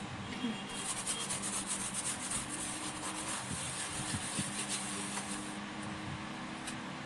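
Fast scrubbing strokes rubbing over the glass of a gas cooker's oven door as it is cleaned. They start just under a second in and stop well before the end.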